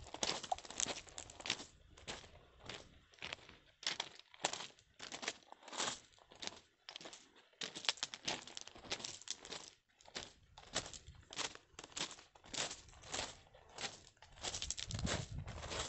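Footsteps crunching on a gravel trail, one quick step after another.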